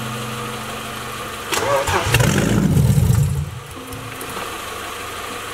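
Newly fitted inline-six car engine running, with a loud rough surge of engine noise for about a second near the middle before it settles back to a lower steady hum.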